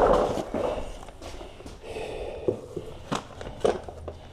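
A man breathing heavily while moving about on foot, with a loud breath at the start. Three sharp knocks come in the second half, the sound of things being handled.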